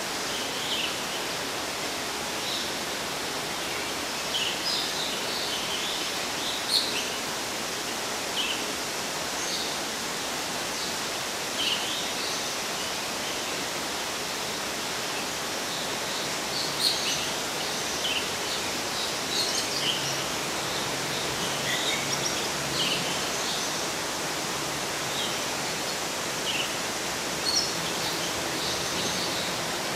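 Steady rushing background noise, like falling water, with birds chirping in short high calls scattered throughout.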